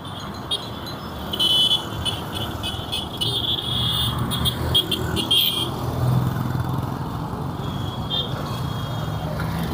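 Street traffic: a motor vehicle's engine running close by, its low hum swelling from about halfway through. In the first half there is a high-pitched sound in short, broken bursts.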